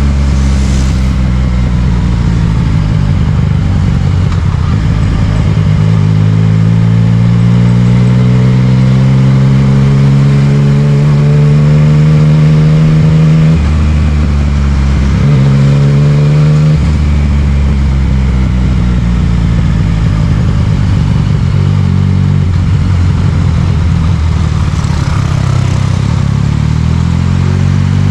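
Yamaha MT-09's three-cylinder engine through an Akrapovic aftermarket exhaust, accelerating. The note climbs steadily for several seconds, then drops sharply at a gear change about halfway through. It climbs briefly again and drops at a second change, runs lower for a while, and starts rising again near the end.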